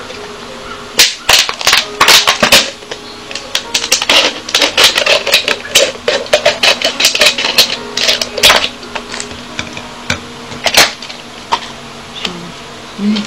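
Thin plastic drink bottles being handled and pressed together, giving irregular sharp crackles and clicks in quick clusters that stop about two seconds before the end.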